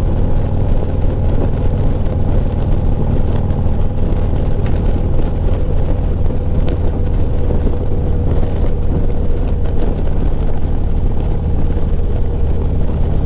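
Harley-Davidson Street Glide's V-twin engine running at cruising speed, heard through the wind and road rush of riding, a steady loud drone with no real change.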